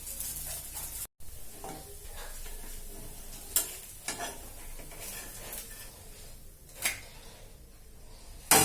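Thin rice-batter sorochukuli pancake sizzling on a hot pan, with a few sharp clicks and scrapes of a utensil against the pan as it is worked loose. The last click, near the end, is the loudest.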